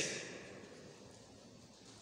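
Near silence: faint hall room tone with a steady hiss, as the echo of a man's amplified voice dies away in the first half-second.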